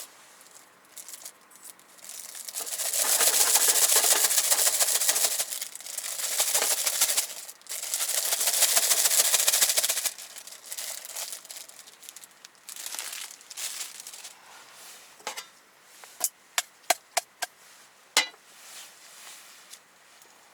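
Plastic food packaging crinkled and torn open in several long rustling stretches, then a handful of sharp clicks and taps as things are handled.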